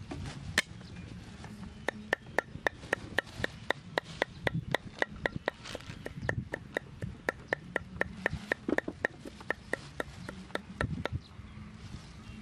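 Cleaver chopping garlic on a round wooden chopping board. After one single sharp knock, a steady run of knocks at about three a second starts about two seconds in and stops near the end.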